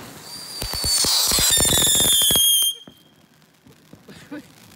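Novelty firework tractor fountain burning with a shrill whistle that falls slightly in pitch, mixed with rapid crackling. It stops abruptly a little under three seconds in, and only a much fainter sound follows.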